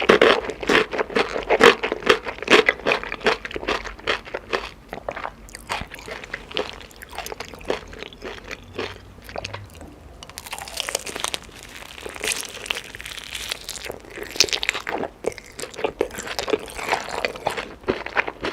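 A person biting and chewing chicken, with many crisp crunches, thickest in the first few seconds, then looser chewing.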